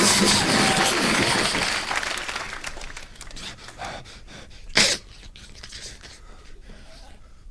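Vocal sound effects made with the mouth into a handheld microphone. A loud hissing rush fades away over the first couple of seconds, then come short breathy puffs, the sharpest about five seconds in.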